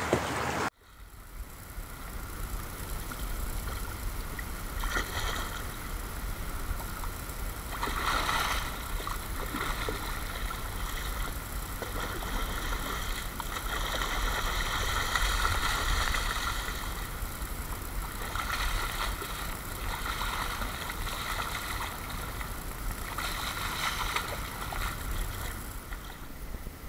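Shallow river water rushing. Repeated swells of splashing come from a hooked salmon thrashing at the surface as it is brought to the bank.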